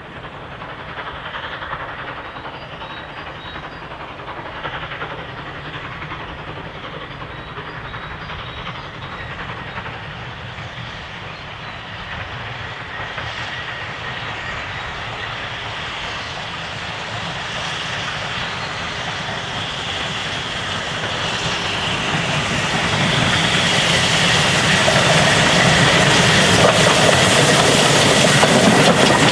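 GWR 0-6-0 pannier tank locomotive 6412 working a passenger train, its steam exhaust chuffing and growing steadily louder as it approaches. Over the last few seconds it draws close and the sound gets much louder and brighter, with the train's wheels running on the rails.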